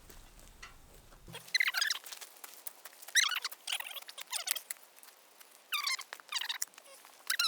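A dog whining: a string of about seven short, high, squeaky whines with bending pitch.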